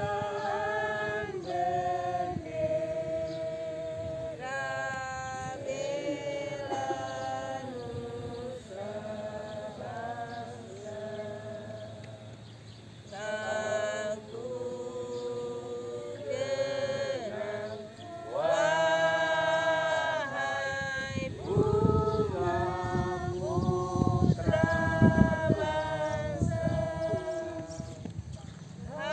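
A group of voices, women's prominent, singing a slow song together in unison, with long held notes. A low rumble comes and goes under the singing in the second half.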